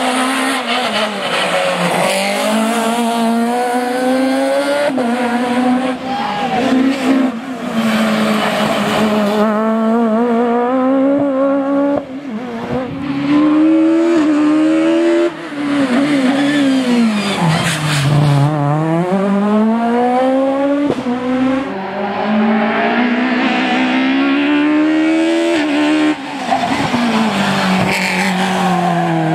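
Peugeot 306 Maxi rally car's high-revving four-cylinder engine under hard acceleration. Its pitch climbs and falls back sharply at each upshift, and twice it sweeps down under braking and downshifting before climbing again.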